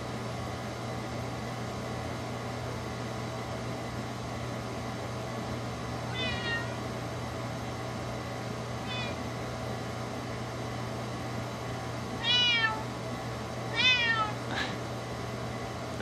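Black-and-white long-haired kitten, afraid of the basement, meowing four times, each meow falling in pitch. Two soft meows come in the middle and two louder ones near the end, over a steady low hum.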